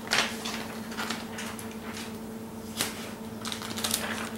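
Scattered light clicks and taps of plastic as a replacement laptop screen panel is handled, a cluster at the start, a single one in the middle and several near the end, over a faint steady hum.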